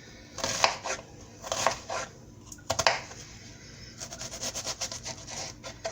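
Kitchen knife cutting an onion on a cutting board: a few separate cuts, then a quick run of small slicing taps near the end.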